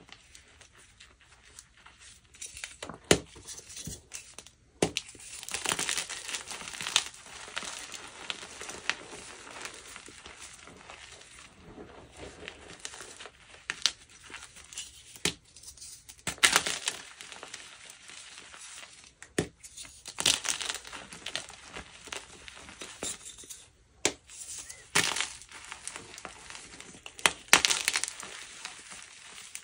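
Dyed gym chalk being crushed and crumbled: sharp cracks and snaps among bursts of dry, crunchy crumbling that come in irregular clusters every couple of seconds.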